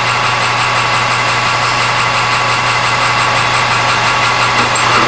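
Metal lathe running with no cut being taken: a steady motor and gearhead hum from the turning spindle.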